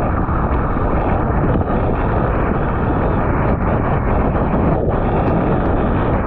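Strong wind buffeting an action camera's microphone while kitesurfing in choppy water: a loud, steady rushing noise that never lets up.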